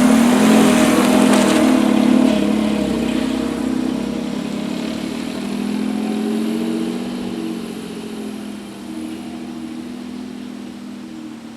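An air horn on a 2009 Smart ForTwo blaring with a wavering pitch for the first few seconds, then the car's small three-cylinder engine pulling away and gradually fading.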